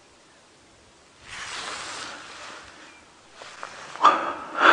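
A person's long breathy exhale close to the microphone, about a second in, like a heavy sigh of relief or stress. Near the end come a few louder, sharper breaths.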